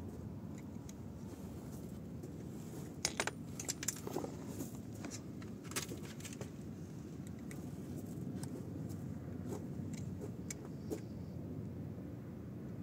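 Small metallic clicks and clinks of a screwdriver and wires being handled at a temperature sensor's terminal box, a quick cluster about three seconds in and a few single clicks later. A steady low hum of running machinery sits under it.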